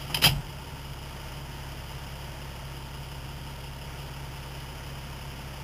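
A couple of sharp knocks in the first half second, then a vehicle engine idling steadily, heard from inside the cab.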